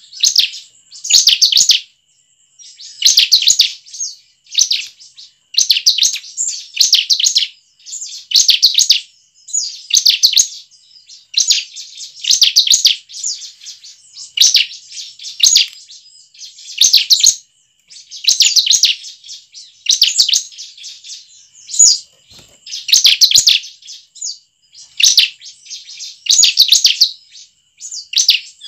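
Bar-winged prinia (ciblek) calling: short bursts of rapid, sharp high chirps, about one burst a second, over and over.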